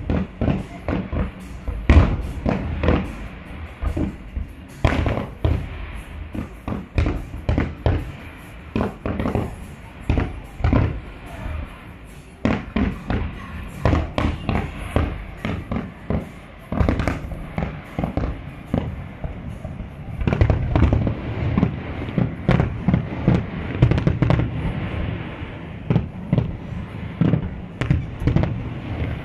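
Aerial fireworks display: shells bursting in quick, irregular succession with low booms and sharp cracks, thickening into a dense barrage about two-thirds of the way through.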